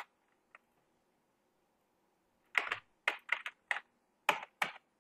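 Computer keyboard clicking: one click at the start, then a quick run of about eight clicks in the last two and a half seconds.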